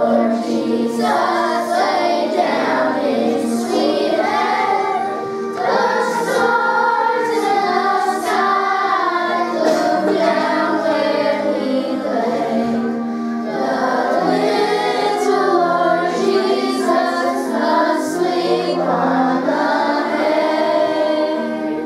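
A group of children singing together with instrumental accompaniment.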